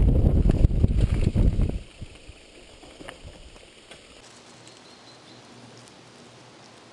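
Wind buffeting the microphone and a bike-mounted camera rattling over the bumps as a mountain bike rides down a rough dirt forest trail, cutting off suddenly about two seconds in. A faint outdoor hush with a few soft ticks follows.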